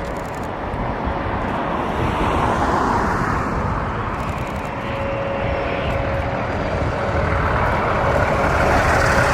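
Jet aircraft engines running: a steady rumble carrying a thin whining tone, growing louder toward the end.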